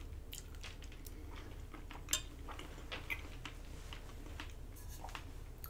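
Quiet eating sounds: soft clicks of chewing a mouthful of cheesy pasta, with a light clink about two seconds in as a metal fork is set down against a glass dish.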